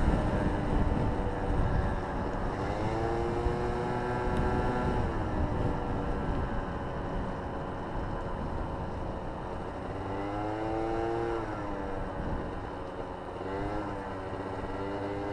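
Following motorcycle's engine, its pitch climbing and falling with the throttle: up about three seconds in, again around ten seconds, and briefly near the end. Heavy wind rush on the microphone runs under it throughout.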